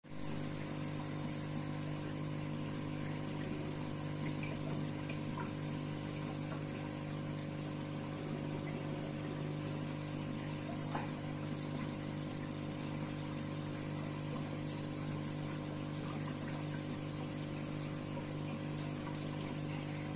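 Aquarium pump running: a steady electrical hum with a constant wash of moving water.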